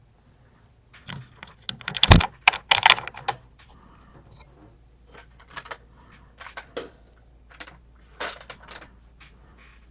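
A lock and picking tools being handled: an irregular run of sharp small clicks and clacks of hard objects, densest and loudest about two to three seconds in, then in scattered short clusters.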